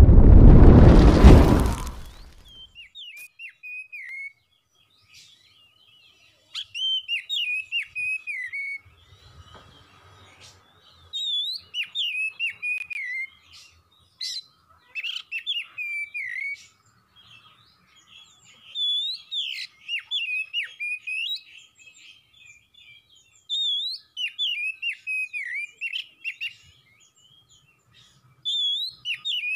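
A loud boom fades out over the first two seconds. Then an oriental magpie-robin (kacer) sings in repeated short bursts of quick, sweeping whistled notes, each burst a couple of seconds long with pauses between.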